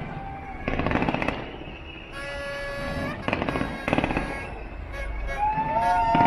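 Fireworks going off in crackling volleys: one about a second in and two more around three to four seconds in. Between the volleys come sustained pitched tones, with a gliding tone near the end.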